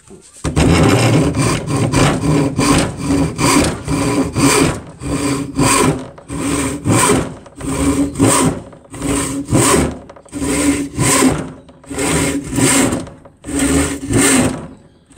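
Disposable Bahco handsaw ripping along the grain of a timber board: steady back-and-forth sawing strokes, about two a second, starting about half a second in.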